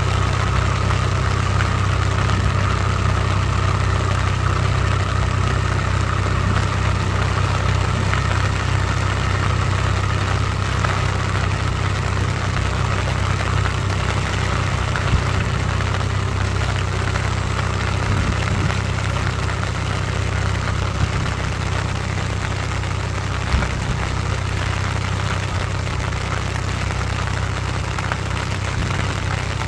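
Swaraj tractor's diesel engine running steadily under load as it drives a rotavator through a flooded paddy field, with a steady hiss over the engine hum. The sound fades slightly as the tractor moves away.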